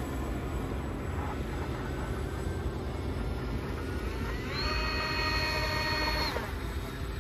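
Twin brushless outrunner motors driving the water jets of an RC model boat: a high whine that climbs quickly as the throttle opens about four and a half seconds in, holds steady for about two seconds, then drops away. A steady low rumble runs underneath.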